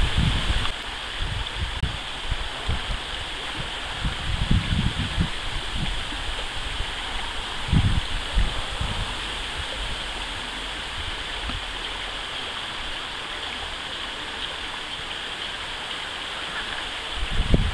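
A shallow stream running over stones makes a steady rush of water, with occasional low rumbles of wind on the microphone.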